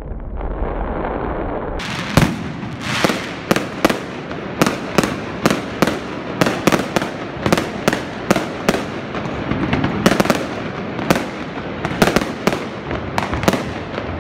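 Aerial fireworks bursting over a steady background noise. From about two seconds in there is a rapid, uneven run of sharp bangs, about two or three a second.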